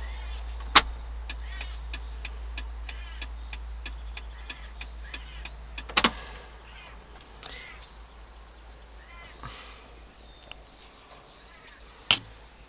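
A steady low rumble with birds chirping, three sharp knocks about six seconds apart, and a quick run of ticks, about five a second, in the first half.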